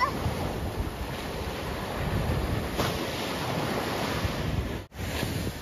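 Small ocean waves breaking and washing up a sandy beach, with wind buffeting the microphone. The sound drops out for an instant near the end.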